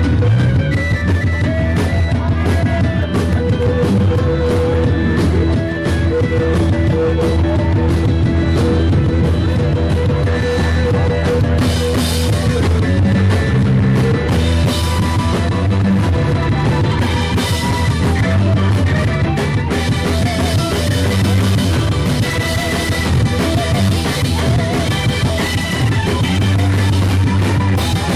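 Rock band playing live: electric guitars over a drum kit with cymbals, loud and continuous.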